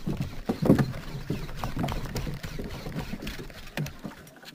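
Shimano Grappler 301HG baitcasting reel being cranked by hand, with irregular clicks and knocks over a low rumble of wind on the microphone.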